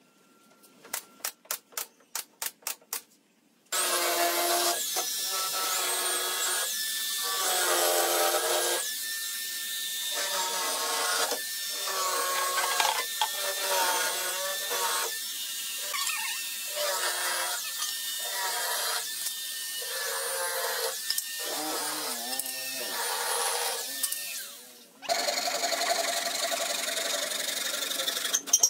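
A quick string of sharp nail gun shots, then a corded handheld power tool run against pine slats, its motor note dipping each time it bites into the wood, about once a second, for some twenty seconds. It cuts out near the end and a rougher scraping noise follows.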